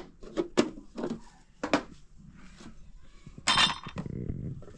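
Dishes and utensils clinking and knocking: a handful of separate sharp clinks, the loudest about three and a half seconds in with a short ringing tone.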